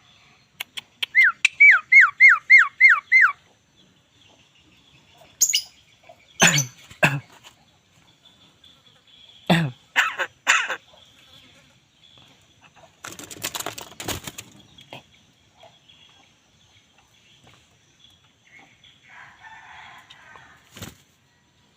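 Javan myna (jalak kebo) calling: about a second in, a quick run of seven falling whistled notes, then several short harsh calls. There is a rustling burst in the middle.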